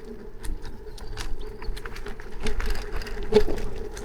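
Electric scooter in motion: a steady motor hum with scattered rattles and clicks from bumps, over a low rumble of wind and wheel noise; a sharper knock comes about three seconds in.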